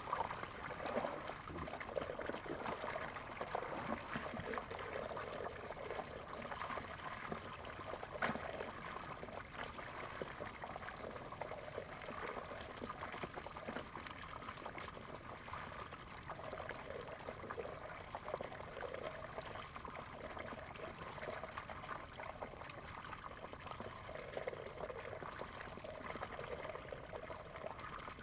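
Water trickling and pouring steadily, with small scattered splashes and clicks.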